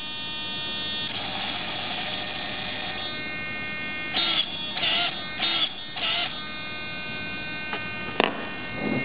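Hobby King hobby servo whining in four short bursts, with the pitch bending up and down, as it rotates a 3/8-inch stainless steel ball valve through its limited 90-degree travel, which leaves the valve short of fully closing. A steady high-pitched electrical hum runs underneath throughout.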